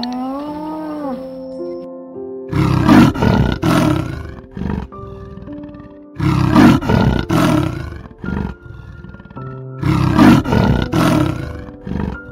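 A tiger roaring three times, each roar about two seconds of deep, pulsing growls, over background music.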